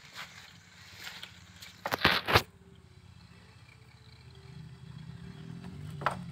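A steady low hum with a brief, loud scraping clatter about two seconds in and a single sharp click near the end.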